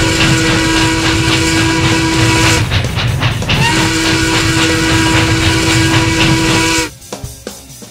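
Steam locomotive whistle blowing two long blasts of about three seconds each, a second apart, over the running noise of the train; the sound drops away near the end.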